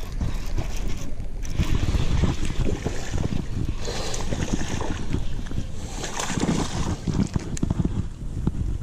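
Wind buffeting the microphone in heavy, gusty rumbles, over the handling rattle of a baitcasting reel being cranked to retrieve a hooked fish.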